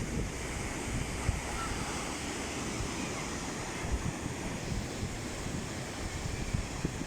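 Sea waves washing steadily on the shore, with wind buffeting the microphone in low, fitful gusts.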